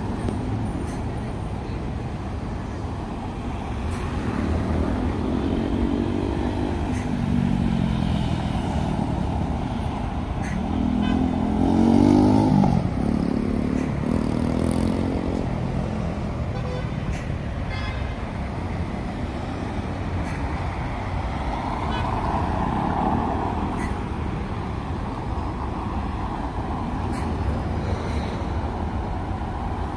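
Road traffic circling a cobbled roundabout: cars, buses and motorbikes passing, engines rising and falling in pitch as they accelerate by, the loudest pass about twelve seconds in.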